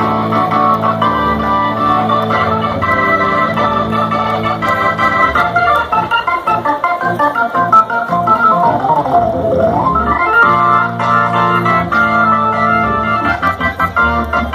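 Rock band's electric organ playing live over the PA: held chords and quick runs, with a pitch sweep that dives down and climbs back up about two-thirds of the way through, while the low sustained notes drop out for a few seconds and then return.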